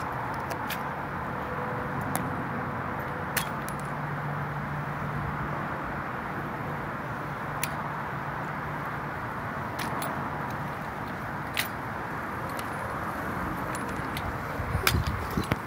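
Steady outdoor background noise with a scattering of sharp clicks and taps from a Springfield 1903A3 replica drill rifle with fixed bayonet being handled. Footsteps on asphalt come in near the end.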